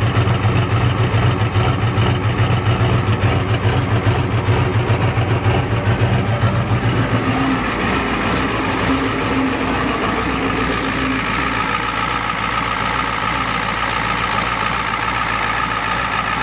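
Naturally aspirated Ford 7.3L IDI V8 diesel idling after sitting a year, running rough; the owner suspects the injection pump is out of time. At first it is a deep, pulsing exhaust note at the tailpipe. From about seven seconds in it turns to a steadier, lighter diesel engine sound heard at the engine bay.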